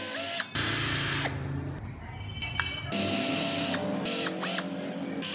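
Handheld electric rotary carving tool cutting wood in about four short bursts. Its motor whines up to speed each time it is switched on, and the grinding noise is high-pitched.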